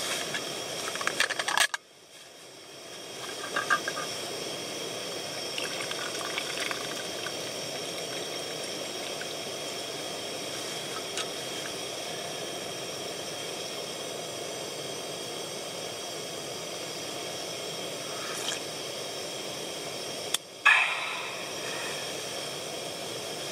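Steady hiss of cassette-gas burners, from the camp stove under the pot and the small gas heater. In the first few seconds there are a few clinks and liquid poured into a plastic cup. Near the end comes a loud sigh, "haa".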